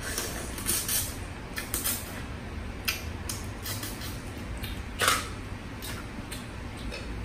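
Close-up eating sounds from a shrimp picked apart by hand: sucking and chewing, with small clicks and crackles of shell, and one louder click about five seconds in.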